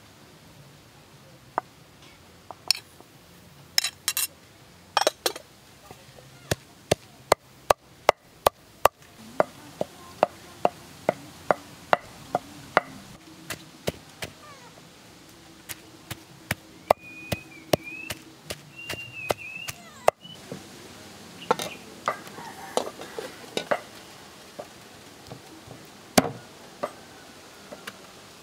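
Wooden pestle pounding a fresh spice paste of lemongrass, galangal and turmeric in a mortar: a long series of dull knocks, about one a second and fairly regular through the first half, less even later.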